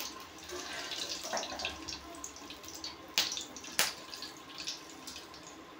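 Oil sizzling and crackling in a metal kadhai on a gas stove, stirred with a metal slotted spoon. The spoon clinks sharply against the pan twice, a little after three seconds in.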